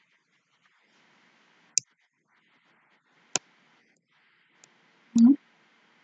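Two sharp clicks about a second and a half apart, then a faint tick and a brief low hum near the end, over faint room hiss.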